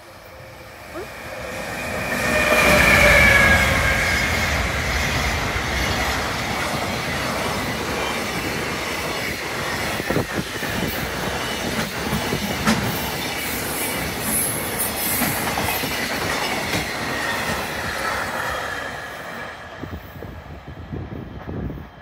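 JR Freight EF210 electric locomotive hauling a long container freight train close by. The locomotive passes with a loud peak about three seconds in and a slightly falling whine. Then the container wagons roll past in a steady rumble, their wheels clicking over the rail joints, and the sound fades near the end.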